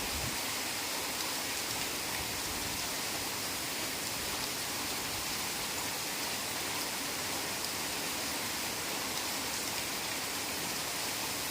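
Heavy rain falling steadily on a forest, an even, unbroken hiss of countless drops with no single drop standing out.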